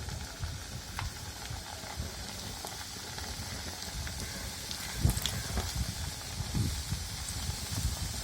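Diamond-cut maida dough pieces (kara thukkada) sizzling as they deep-fry in hot oil in a kadai, with a steady hiss and a few knocks, the loudest about five seconds in.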